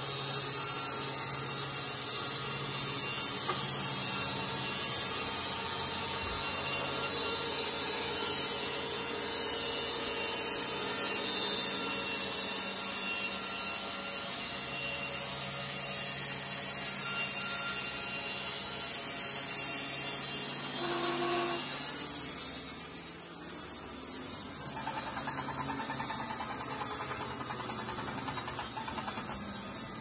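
Electric horizontal band sawmill running, its band blade sawing through a log: a steady motor hum under a hiss. About three-quarters of the way through, the hiss drops away and the sound eases.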